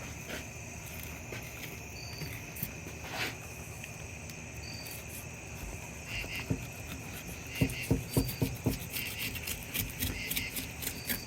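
Steady insect chorus with a short high chirp every two or three seconds. From about halfway through, a run of sharp clicks and cracks as a blade works through the long-nose gar's hard, scaly shell.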